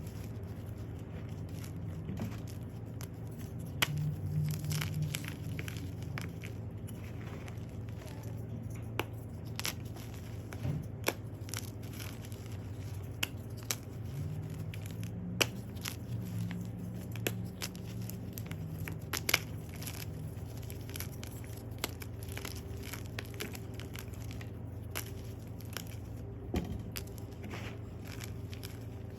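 Dyed gym chalk being crushed and crumbled, an irregular run of crisp crunches and crackles with a few sharper, louder snaps. A steady low hum runs underneath.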